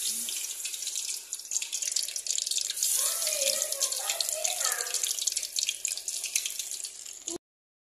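Potato-filled dough pinwheels sizzling and crackling in hot oil in a wok as they deep-fry. The sizzle starts suddenly and cuts off suddenly near the end.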